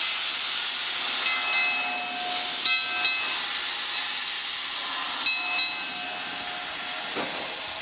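Steam locomotive blowing off steam: a loud, steady hiss of venting steam, with faint whistling tones coming and going in it.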